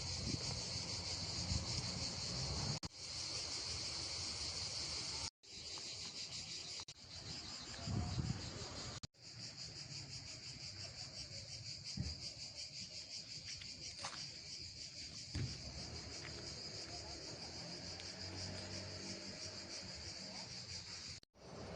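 Crickets chirping in a steady, high, rapidly pulsing trill. It is broken by a few abrupt cuts where the sound drops out for an instant.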